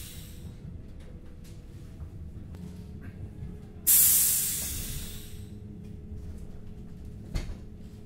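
Train's door mechanism letting out a sudden loud hiss of air about halfway through, fading over a second or so, over the steady low rumble of the standing train. A single knock near the end.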